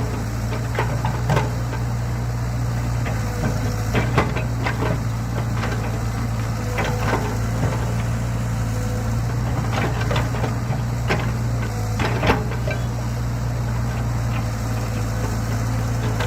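Diesel excavator engine running steadily, with irregular knocks and cracks as the machine digs into soil and wood.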